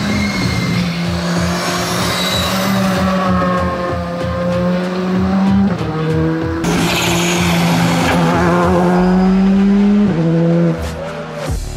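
Rally car engine running hard at high revs, its pitch climbing slowly and dropping as it shifts up, about six and ten seconds in.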